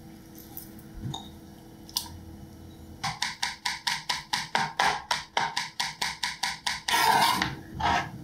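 A kitchen knife rapidly chopping ginger on a wooden cutting board, about six or seven quick, even chops a second for around four seconds. Near the end the blade scrapes the minced ginger together across the board.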